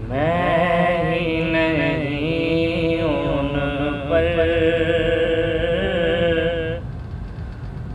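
A man's solo voice singing the drawn-out opening notes of an Urdu naat, sliding between long held pitches, then breaking off for about a second near the end.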